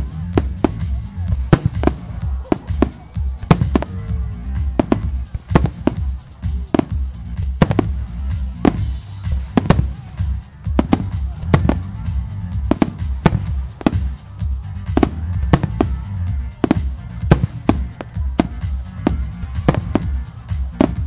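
Aerial firework shells bursting in quick succession, a sharp bang every second or so, some close together, over music.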